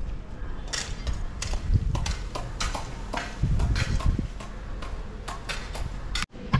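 Hand trigger spray bottle misting in a quick run of short hissing squirts, about three a second, over low wind rumble on the microphone.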